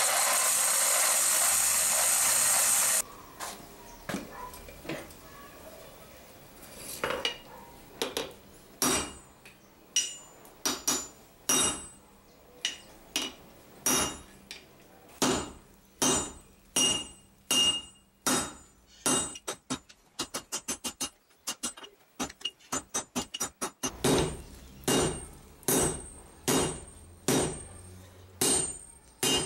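A loud steady hiss cuts off about three seconds in. Then a hand hammer strikes red-hot leaf-spring steel on an anvil over and over, roughly one or two blows a second, each blow ringing briefly.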